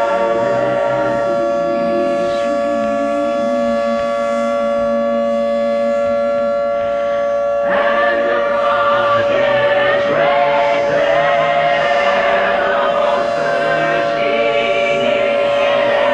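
Civil defense sirens sounding on a steady held tone under eerie choir-like voices. The sound swells fuller and a little louder about eight seconds in.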